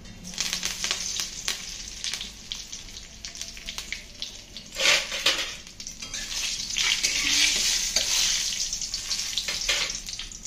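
Green chillies and dried red chillies sizzling in hot oil in a kadai, stirred with a metal ladle that scrapes and clicks against the pan. A loud knock comes about five seconds in, and the sizzle swells from about seven seconds.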